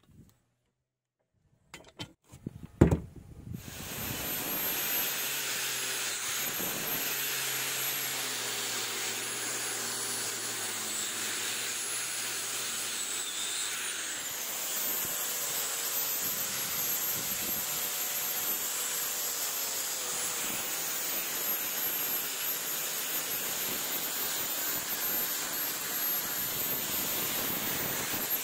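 A few clicks and a sharp knock about three seconds in, then a 125 mm angle grinder fitted with a stainless-steel wire cup brush runs steadily against the steel of a railroad-track anvil, scouring rust and scale off its face, with a high wavering motor whine over the scraping.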